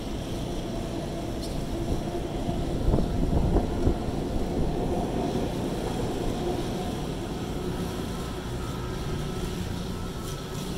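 Steady city street traffic noise with a low hum of engines, swelling louder for a moment about three to four seconds in.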